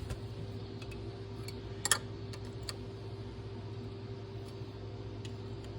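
A few light metal clicks and taps from a 1/4-inch drive socket and bolt being worked by hand, one a little louder about two seconds in, over a steady low hum.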